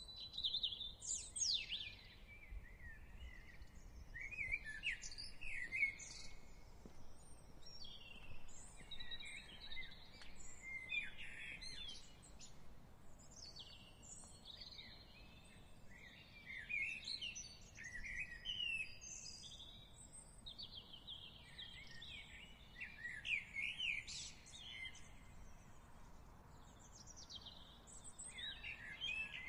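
Several songbirds singing and calling at once, a busy chorus of short chirps, trills and whistles, over a faint low background rumble.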